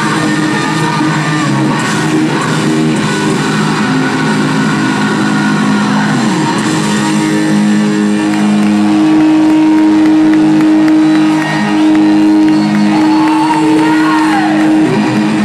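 Live hard rock band playing loud, with distorted electric guitar holding long sustained notes over the band, bending pitch down about six seconds in and again near the end.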